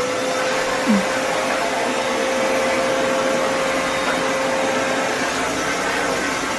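VO.TEMM handheld vacuum cleaner running steadily: a constant motor whine over a rush of air.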